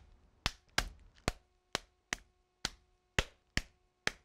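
A heavy pot whacked down again and again on a chicken breast sealed in a plastic bag, pounding it flat: about nine sharp thuds, roughly two a second.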